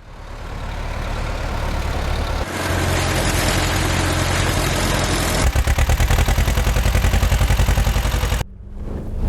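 Vehicle engines running, in three short clips cut together, the last with a fast, even pulsing; it cuts off sharply near the end.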